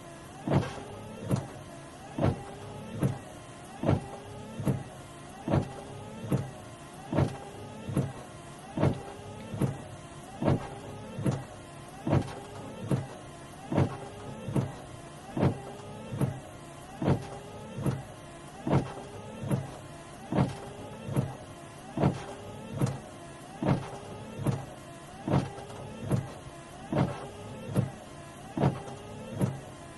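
Car windscreen wipers heard from inside the cabin, sweeping back and forth at an even, fairly fast pace: a little more than one stroke a second, each ending in a knock, with the blades' sweep in between and a steady low hum underneath.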